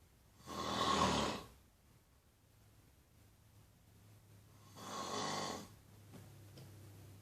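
Snoring: two snores about four seconds apart, the first louder and longer than the second.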